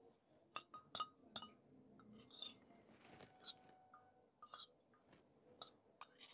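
About eight sharp, ringing clinks spaced irregularly, from hard baked-clay pieces, a spoon and the dish knocking together as they are handled.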